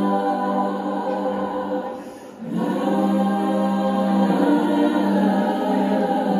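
Music of sustained choir-like voices holding chords, fading briefly about two seconds in and then swelling back.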